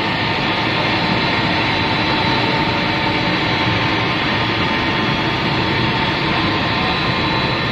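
ZRFT1300 high-speed paper slitting machine running: a steady mechanical drone and hiss with a few steady hum tones over it.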